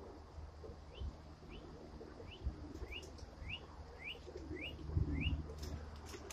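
A bird chirping, a run of about nine short rising chirps about two a second, over a low steady rumble.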